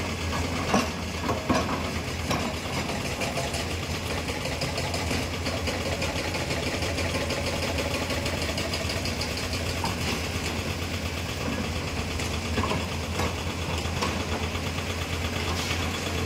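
Hyundai 210 crawler excavator's diesel engine running steadily, with a few short knocks near the start and again near the end.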